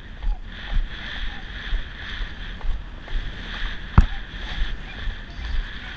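Wind rushing over a saddle-mounted camera's microphone as the horse moves along a dirt road, with regular dull thuds of its hooves. A single sharp knock about four seconds in.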